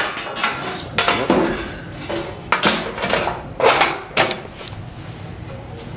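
Metal clanking in a workshop: about six sharp metallic knocks a second or so apart, each with a short ring, dying away about five seconds in.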